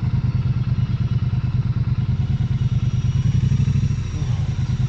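Vehicle engine idling with a steady, fast, even pulse.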